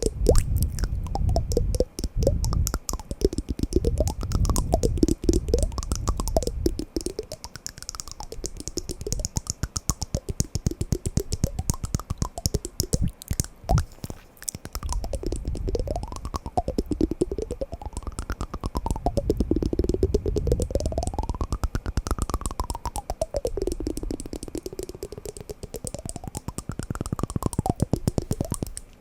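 Wooden blocks being knocked and tapped in a rapid, continuous clatter of small clicks. Through the second half a tone slides up and down in pitch beneath the tapping.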